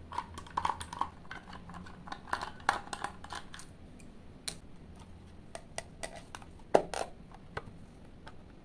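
Small clicks and taps of a screwdriver turning out the screws of a plastic multimeter back cover, with the hard plastic case being handled. The clicks are scattered and irregular, with one sharper click near the end.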